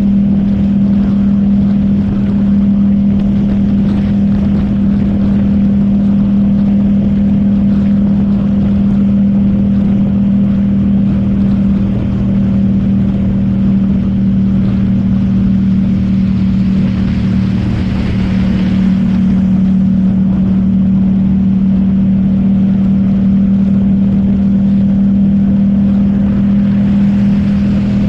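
Yamaha MT-07's parallel-twin engine running at a steady highway cruise, a constant low drone, over wind rush and wet-road hiss; the hiss swells for about two seconds a little past halfway.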